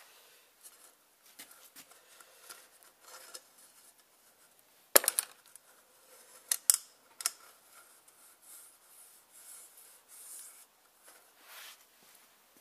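Hands handling a plastic oil filter housing cap clamped in a vise: light rubbing and scraping with small sharp clicks, the loudest about five seconds in and a few more a second or two later.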